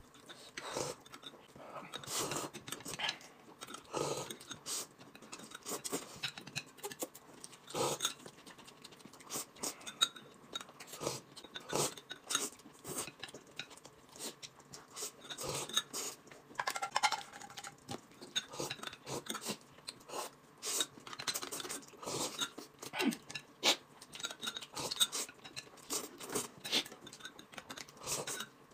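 People eating noodles: chopsticks clicking and scraping on a plate and a cup, with slurping and chewing, heard as scattered short clicks and soft mouth sounds.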